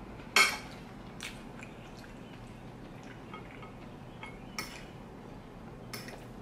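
Metal fork clinking against a ceramic plate: one sharp clink just under half a second in, then a few lighter clinks later, with faint chewing between.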